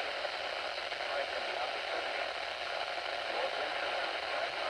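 Steady static hiss from a weak NOAA Weather Radio broadcast on a radio receiver, with the automated forecast voice faintly audible under the noise.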